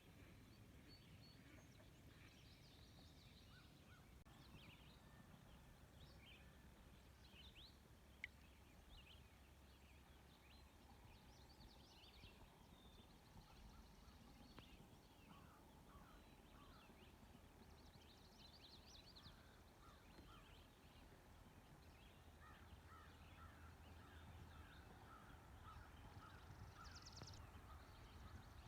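Faint birdsong: many short chirps and call phrases from several birds, scattered throughout over a low rumble, with a single sharp click about eight seconds in.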